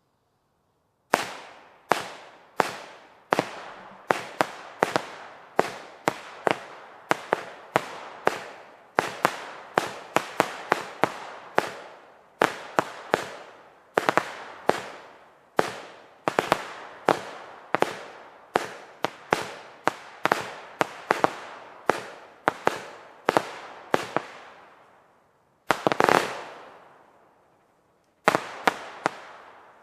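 Jorge Eden crossette battery firing: a quick, even run of sharp bangs, roughly one and a half a second, each fading out behind it. Near the end it pauses briefly, gives one longer, louder burst, pauses again, and fires a last few shots.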